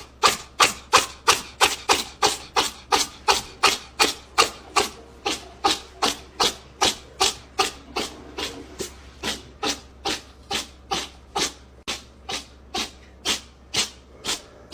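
Rhythmic scraping, about three evenly paced strokes a second, keeping up without a break.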